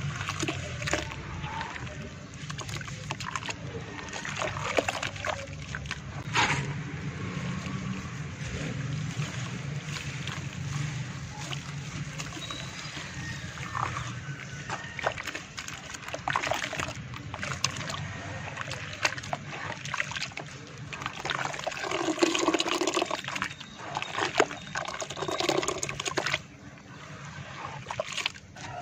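Hands squeezing and kneading soft wet red dirt in muddy water in a basin: irregular squelching and sloshing with occasional splashes, over a steady low hum.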